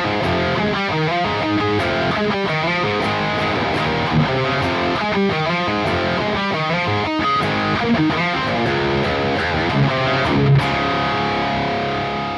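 Soleil Orion electric guitar with Bareknuckle Aftermath pickups played through distortion: a riff of changing notes, with a chord left ringing near the end.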